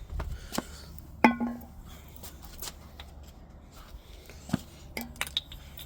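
Hard items being handled at an engine's oil filler neck: scattered light clicks and knocks, one sharp ringing clink about a second in and two more clinks near the end.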